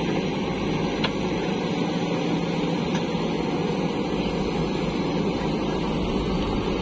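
Diesel engines of a JCB 3DX backhoe loader and a farm tractor running steadily under work, with a single sharp knock about a second in.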